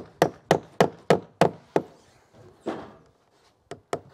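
Claw hammer tapping a small polytop nail through pre-drilled thin plastic capping on a fascia board, in quick light strikes about three a second. The tapping stops a little after halfway, then two more taps come near the end.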